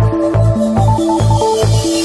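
Electronic dance music with a steady bass beat, about three beats a second, under a melody of short synth notes.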